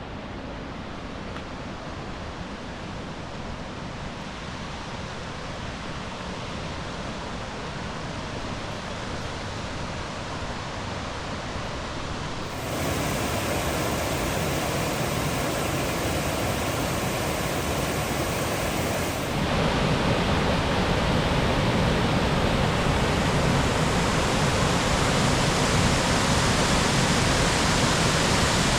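Rushing water of a river waterfall, a steady rush of noise that gets abruptly louder about 13 seconds in and again about 19 seconds in.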